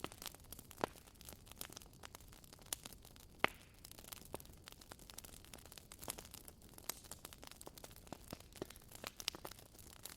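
Wood fire crackling: irregular sharp snaps and pops over a soft steady hiss, with a louder pop a little under a second in and the loudest about three and a half seconds in.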